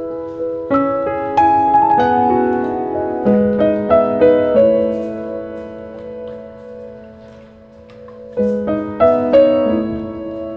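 Background piano music: gentle chords and melody notes that ring and fade, easing into a lull before fresh notes come in near the end.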